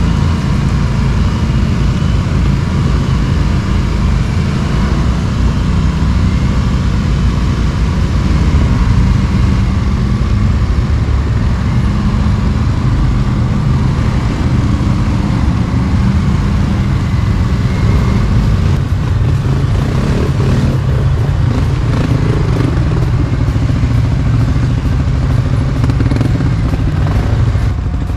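ATV engine running steadily under way, heard from on board the rider's own quad. In the second half, rattling and knocking over rough ground joins in.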